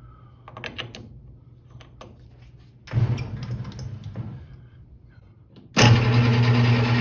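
Metal lathe: a few light clinks, then about three seconds in the motor comes on briefly and dies away. Near the end it switches on again and runs steadily with a low hum.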